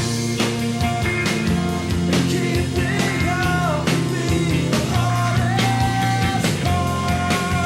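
Rock music soundtrack: a band with guitars and drums and a singing voice, at a steady beat.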